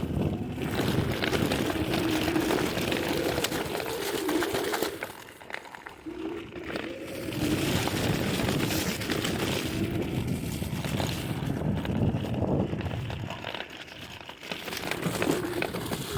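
Yume Y10 electric scooter ridden over a dirt road: a wavering motor whine that rises and falls with speed, over rushing wind and tyre noise. It eases off twice, about five seconds in and again near the end.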